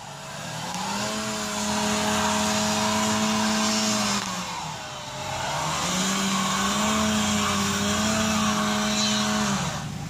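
A car engine is revved high and held while its wheels spin on ice, with a steady tyre hiss under it. The revs fall away about halfway through, then climb and hold again before dropping near the end. The car is spinning its wheels without grip on an icy hill.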